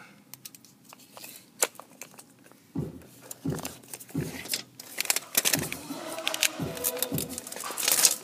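Sharp clicks and rattles of a tape measure and phone being handled, then music with a steady thumping beat coming in about three seconds in.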